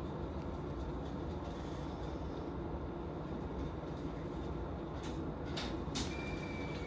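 Tokaido Line electric train standing still, its onboard machinery giving a steady low hum. A couple of faint clicks and a brief high tone come near the end.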